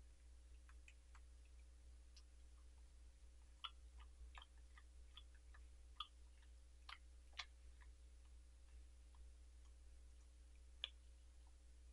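Welsh corgi licking supplement gel off a table close to the microphone: faint, scattered wet clicks and lip smacks, a few of them sharper, over a steady low hum.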